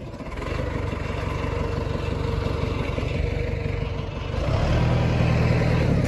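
John Deere 555 crawler loader's diesel engine running steadily at idle, freshly started after years sitting; it grows louder about four seconds in.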